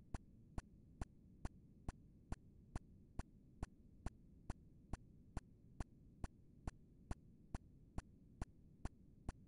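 Steady, even ticking, a little over two ticks a second, over a faint low background noise.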